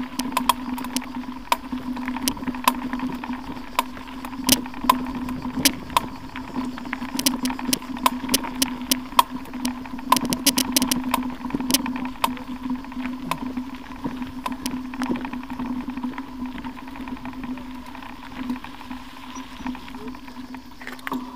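Mountain bike rolling over a rough, stony gravel track, heard from a camera mounted on the bike: a steady hum with frequent sharp clicks and rattles as stones and bumps jolt the bike.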